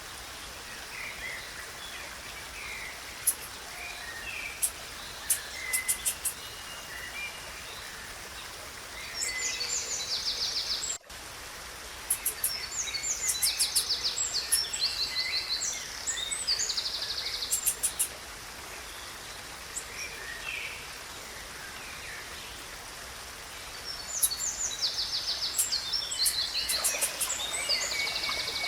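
Blue-black grassquit (tizil) and other songbirds singing in three bouts of quick, high, repeated chips and trills, with single chirps between them. Underneath is a steady natural background hiss.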